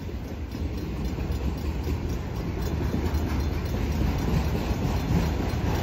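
Autorack freight cars rolling past a grade crossing at low speed: a steady low rumble of wheels on rail that slowly grows louder.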